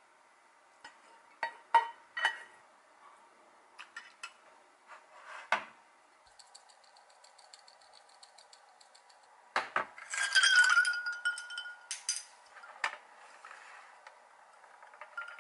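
Light taps and scrapes of a plastic rice paddle against a ceramic bowl. About ten seconds in comes the loudest part: a run of glassy clinks with a short ringing tone, ice cubes knocking in a glass of iced water as it is set down.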